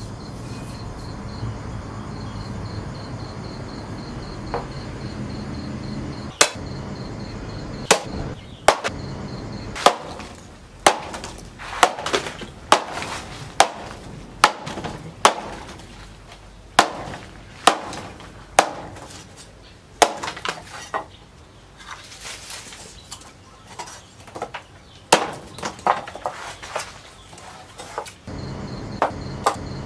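A large, heavy forged knife chopping through sticks on a wooden plank: a long series of sharp chops, roughly one a second, each blow cutting the stick and striking the wood beneath. Crickets chirp steadily before the chopping starts and again after it stops.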